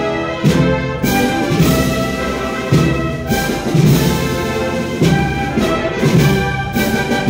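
Brass band of trumpets, trombones and horns playing a slow procession march, with a drum stroke about once a second under sustained chords.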